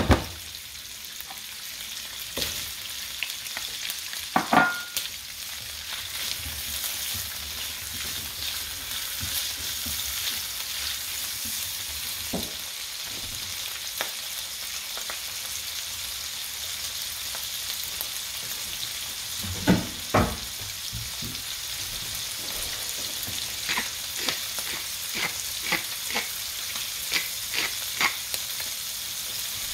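Shrimp, garlic and cherry tomatoes sizzling in oil in a nonstick frying pan, a steady high hiss. A silicone spatula knocks against the pan as it stirs at the start, there are occasional knocks later, and a run of small pops and clicks comes near the end.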